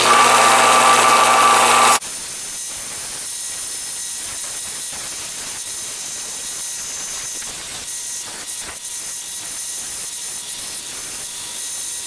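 Electric grinder running as forge scale is ground off a small forged steel scribe. A loud steady hum for about two seconds drops suddenly to a quieter, steady hissing whir.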